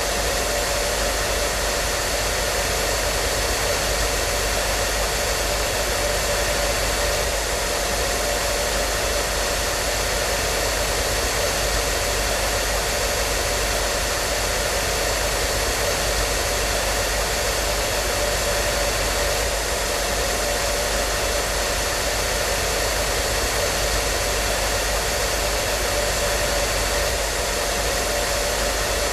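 Hair dryer running steadily: an even, unchanging blowing hiss with a faint steady whine from its motor and fan.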